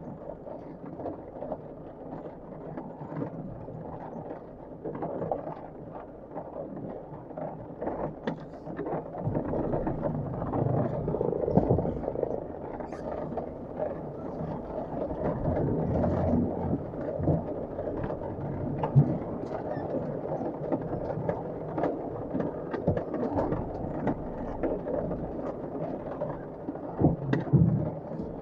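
Heavy rain drumming on a Land Rover Defender 110 as it crawls up wet rock steps, its engine running under load, with scattered knocks and clunks from the body and suspension over the rocks.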